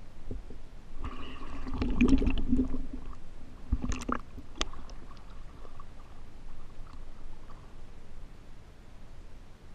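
Water sloshing and gurgling as the microphone dips in and out at the surface, with a low hum between about one and three seconds in and a couple of sharp knocks about four seconds in.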